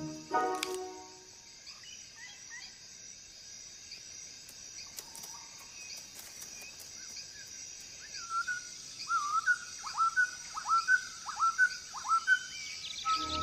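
Forest ambience: a faint steady high hiss with scattered bird chirps, then in the second half a run of about seven sharp, hooked chirps, roughly two a second. A short burst of music opens it.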